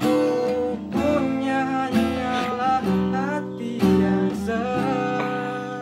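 Acoustic guitar strumming sustained chords, struck roughly once a second, with a voice singing along over it.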